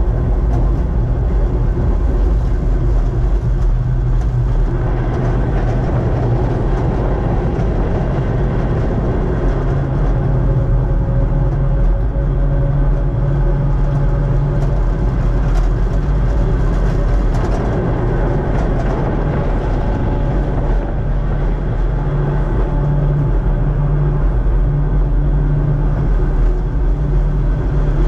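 Kurobe Gorge Railway's narrow-gauge electric train running, heard from the driver's cab: a steady low rumble of wheels on rail with a motor hum, and a faint whine through the middle stretch.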